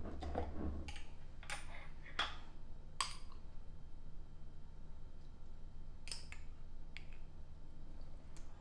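Metal spoon clinking against a glass jar of sweet pickle relish as relish is scooped out: a scattering of short, sharp clinks over a low steady hum.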